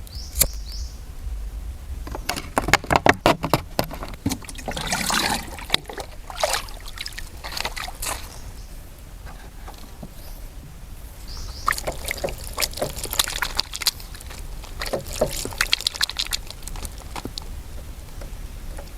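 Water pouring and trickling in short spurts, mixed with many light clicks and knocks of objects being handled.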